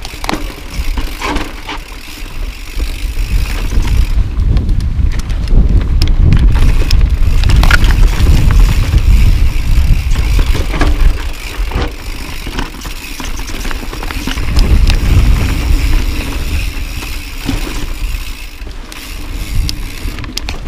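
Full-suspension mountain bike (2013 Tallboy LTc) descending a rocky dirt trail. The tyres rumble over the ground while the bike rattles and knocks over bumps and rocks. The rumble grows loudest in the middle stretch and again later on.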